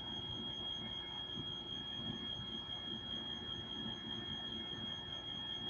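Faint scratching of a ballpoint pen writing on paper, under a steady high-pitched electronic whine.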